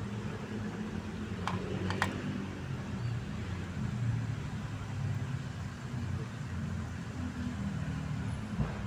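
Chicken frying in a pan of bubbling oil over a wood fire, with a steady low rumble underneath. Metal tongs click twice against the pan about a second and a half in, as the pieces are turned.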